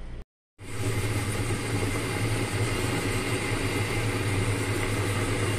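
A steady low motor hum with an even hiss over it, typical of vegetables frying in oil with a kitchen fan running; it starts just after a brief dropout at the very beginning.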